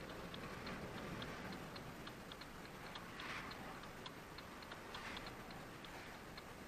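Faint, even ticking, about four ticks a second, over low background hiss with a couple of soft swells of noise.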